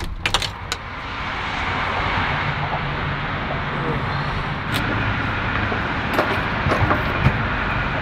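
Steady roar of vehicle traffic, with a low engine hum and a few light clicks. It swells over the first second, then holds even.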